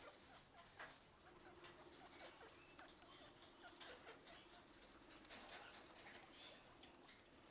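Faint guinea pig sounds: short rising squeaks and a low, steady purr lasting several seconds, with light rustling in the hay.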